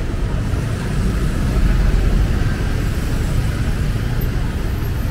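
Street traffic of motorbikes, cars and buses: engines running close by in a steady low rumble that swells briefly about two seconds in.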